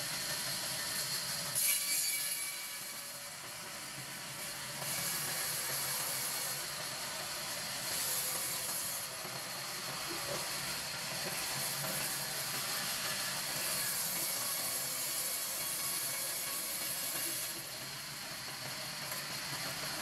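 Large sawmill band saw running with a steady hiss and a faint high whine, swelling louder several times as the palm log is worked on the carriage.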